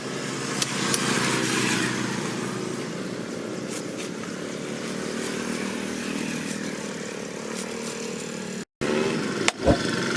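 A small engine or motor running steadily, with a brief cut in the sound about three-quarters of the way through.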